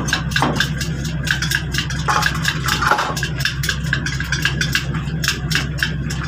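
An engine idling steadily, with light clicking over it and a metal clank about two to three seconds in as a removed truck brake shoe is set down on the ground.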